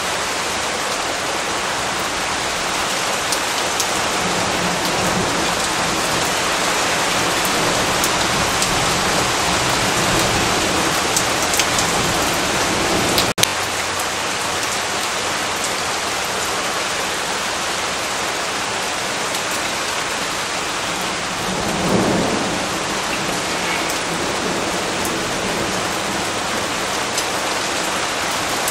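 Steady heavy rain falling, with rolls of thunder rumbling low in the first half and again later. There is one sharp click near the middle.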